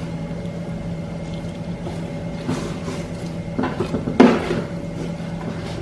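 Glossy slime being squeezed and handled, giving a few soft squelches about halfway through and just past the middle, the loudest around four seconds in, over a steady low hum.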